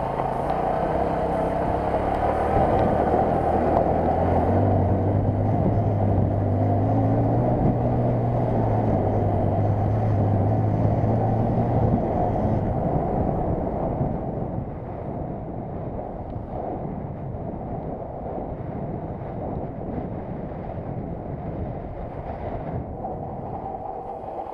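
Small commuter motorcycle's single-cylinder engine pulling hard at full throttle, its note steady and slightly rising. About halfway through the throttle eases off and the engine runs quieter, under the rumble of riding over rough ground.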